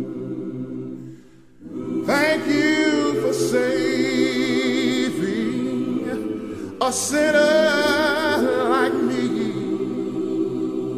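A cappella gospel singing: a lead voice with vibrato sings long held notes over several voices holding chords beneath it. The singing breaks off briefly about a second in, then picks up with a new phrase at about two seconds and another at about seven.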